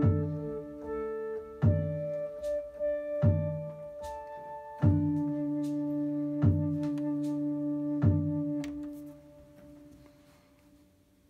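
Synthesizer music: a Sequential Take 5 on a soft flute-like patch playing a slow melody over held low notes, with a sharp percussive hit about every second and a half. The music dies away over the last two seconds.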